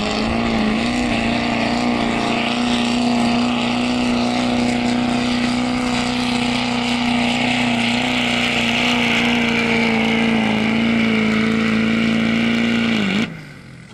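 Diesel pickup truck engine running at high, steady revs under full load while pulling a weight-transfer sled, climbing briefly in pitch at the start, then cutting off suddenly about thirteen seconds in.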